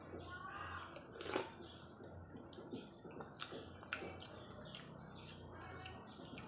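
A person eating rice porridge with a metal spoon from a ceramic bowl: soft chewing and mouth sounds, with sharp spoon clicks against the bowl, the loudest about a second and a half in.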